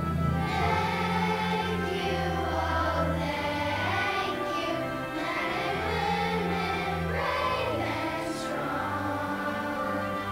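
Children's choir singing a song with instrumental accompaniment, a sustained low bass line under the voices.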